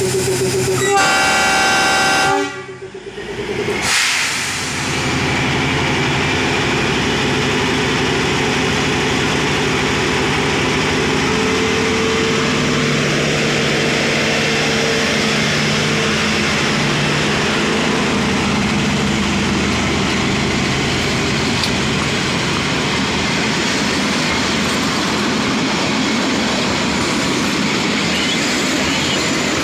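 Narrow-gauge (2 ft 6 in) diesel locomotive sounding a short horn blast near the start. Its engine then runs steadily as it passes close, followed by its coaches rolling by on the rails.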